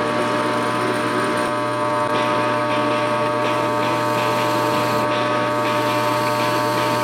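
Metal lathe running at speed, a steady whine with several fixed tones over a hiss, while the tool cuts a spinning fitting held in the chuck.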